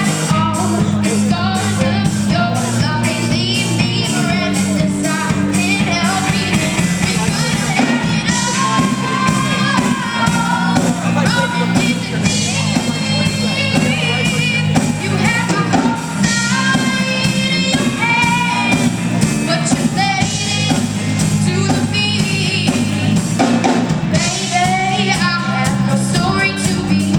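A rock song with a singing voice over guitar and a steady drumbeat.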